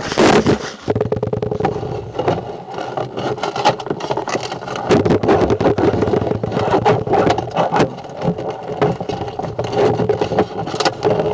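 A motor running steadily, with rattling and scraping over it. It starts suddenly just before and keeps going without a break.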